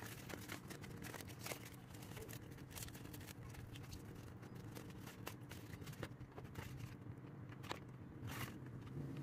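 Faint scraping, rustling and small clicks of a foam-board piece being handled and bent by hand, with a brief louder rustle about eight seconds in. A low steady hum sits underneath.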